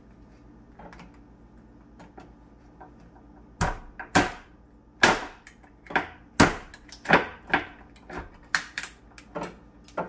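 Knife chopping blue crabs in half: a string of about a dozen sharp knocks, roughly two a second, starting a few seconds in.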